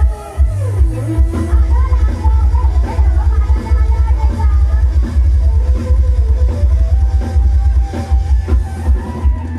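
Live band music played loud through a mobile stage truck's sound system: a heavy pulsing bass beat with a melody line over it.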